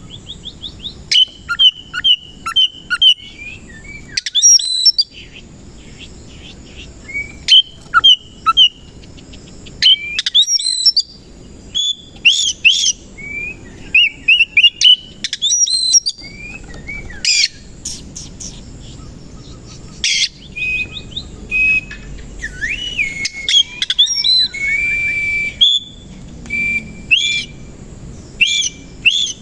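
Oriental magpie-robin (kacer) in loud, agitated song. It sings short phrases of varied whistles, sliding notes and sharp chirps, some notes repeated in quick runs, with brief pauses between phrases. This is the excited fighting song ("ngebyak", "gacor") that keepers use to provoke rival males.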